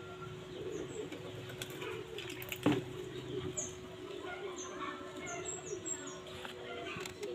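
Handling noise from a laminated-iron transformer being turned over in the hands, with one sharp knock about two and a half seconds in. Small birds chirp in the background.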